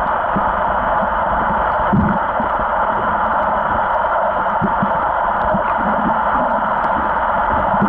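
Muffled underwater noise picked up through a camera's waterproof housing: a steady hiss, with a few dull knocks from the gear and hands bumping against it.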